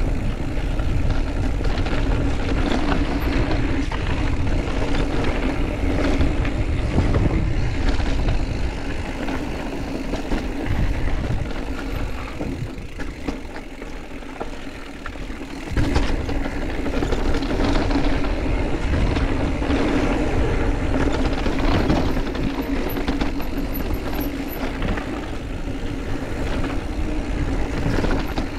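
Mountain bike running down a dirt trail: tyre rumble and wind noise with the bike rattling. It eases off for a few seconds, then a sharp knock comes about sixteen seconds in.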